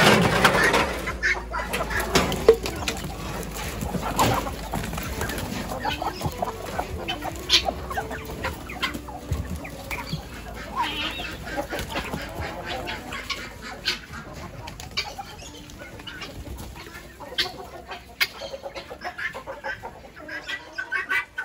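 Chickens and roosters clucking and flapping their wings as they are let out of the coop. There is a loud metal rattle at the very start as the corrugated sheet-metal coop door is pulled open.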